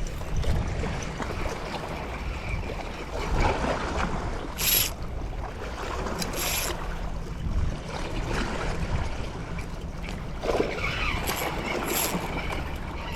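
Wind buffeting the microphone over a steady wash of seawater, with a few short hissing gusts.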